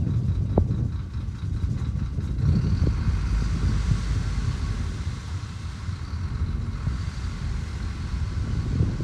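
Heavy diesel earthmoving machinery running, a steady low, uneven engine rumble.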